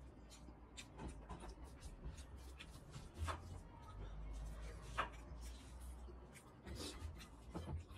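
Eating sounds of a man eating curry and rice with his hand: wet chewing and lip smacks heard as scattered short clicks, the sharpest about three, five and seven seconds in, over a low steady hum.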